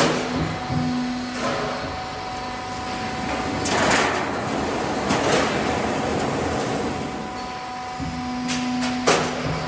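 Half-round gutter roll forming machine running, a metal strip feeding through its forming rollers with a steady mechanical noise. A hum drops out for a few seconds in the middle, and there are sharp clanks at the start, near four and five seconds, and near the end.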